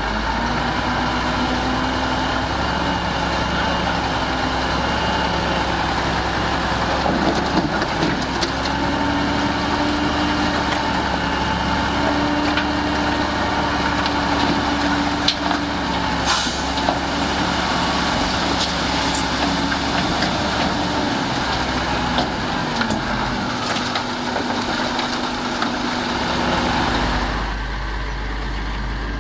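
Heavy diesel engines of earthmoving machinery running, the engine note rising and falling as they work, with a few sharp knocks here and there. Near the end the sound drops and turns duller.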